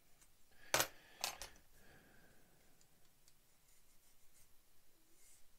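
Sharp clicks of a plastic model kit part and a hobby tool being handled during nub cleanup: one loud click about a second in, two more close together just after, then faint light ticks.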